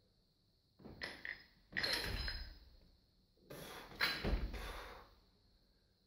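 Barbell snatch repetitions: the loaded bar and its plates clatter as it is pulled and caught, the lifter's feet land on the platform, and a heavy thud comes about four seconds in as the bar is lowered back down. The sounds come as short clanking, thudding spells with quiet between them.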